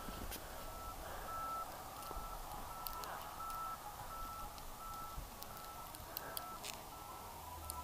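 Faint electronic beeping: one short high beep repeated evenly, about three beeps every two seconds, over a low rumble of wind on the microphone.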